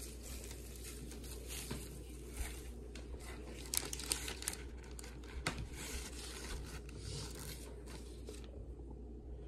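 Gift wrapping paper and gold foil curling ribbon rustling and crinkling as they are handled and pulled open, with irregular sharp crackles. The crinkling dies down near the end.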